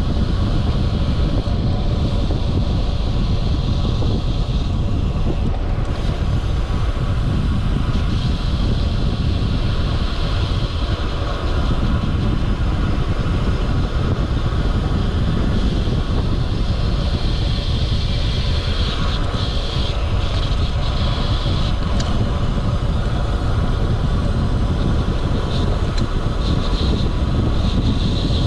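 Steady rush of wind buffeting the microphone of a road bike's camera while riding, mixed with the hum of the tyres on the road.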